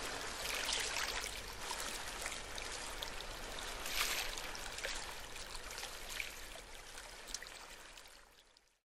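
Gentle surf washing up a sandy beach, the foam fizzing as the water runs over the sand, swelling a couple of times and fading out near the end.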